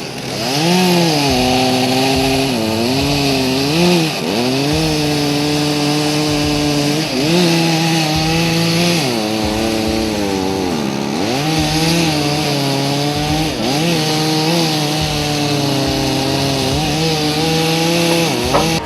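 Chainsaw running at high revs while cutting wood, its engine pitch dipping sharply again and again as the chain bogs in the cut and then recovering, over a steady hiss of chain and chips.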